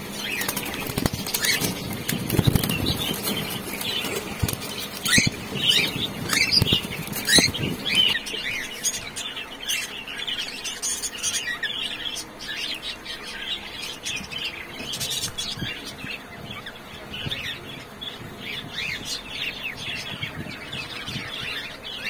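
A flock of cockatiels in an aviary chirping and giving short whistled calls, many birds overlapping, with wings flapping. It is busiest in the first eight seconds, then settles into steadier chatter.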